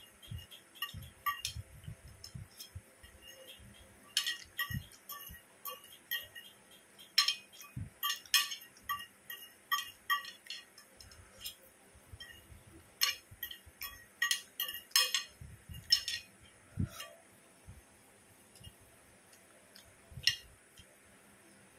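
A metal fork clinking and scraping against a plate while noodles are eaten, in irregular clusters of sharp, ringing taps with pauses between them and one last clink near the end.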